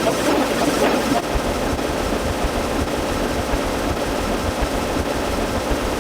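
Steady engine-like rumble with an even hiss over it.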